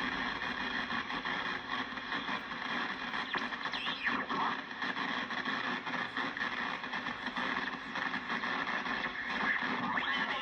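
National NC-303 shortwave receiver tuned to the 10-meter band, its speaker giving a steady hiss of static laced with a fast crackling buzz. The crackle is electrical interference coming in through the antenna, sparking noise that the owner puts down to a bad power line or faulty wiring in his own or a neighbour's house.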